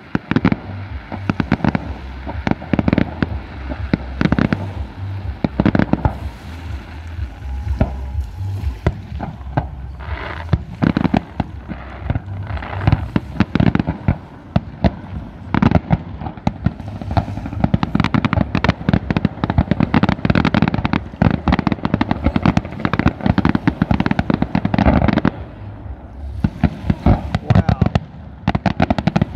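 Aerial fireworks display: shells bursting in a rapid, near-continuous barrage of bangs and crackles, easing a little near the end.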